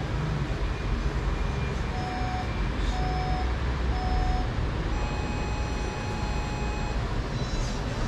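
Workout interval timer beeping: three short beeps a second apart, then one long, slightly higher beep lasting about two seconds, the countdown that starts the next minute's round. A steady rushing noise runs underneath.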